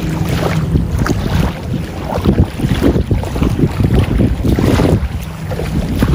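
Wind buffeting the microphone in loud, uneven gusts, with water lapping and splashing in the shallows.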